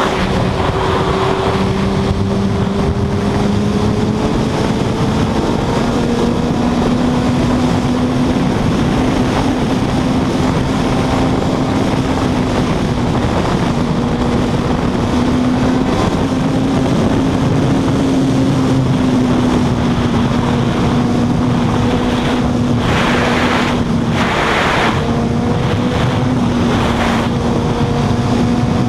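Suzuki GSX-R1000 inline-four engine running at a steady high rev at highway speed, its note shifting only slightly in pitch, under heavy wind rush on the microphone that gusts louder a few times near the end.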